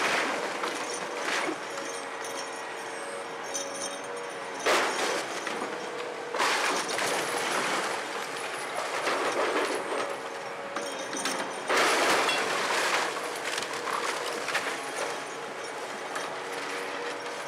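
Volvo hydraulic excavator running steadily while its demolition grapple tears into a building's roof and wall. Wood splinters and debris clatter and crash down several times, loudest about five, seven and twelve seconds in.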